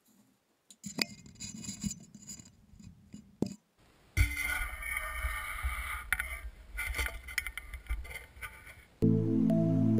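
Irregular scraping, rubbing and clicking handling noises with a short break partway through, then music starts near the end.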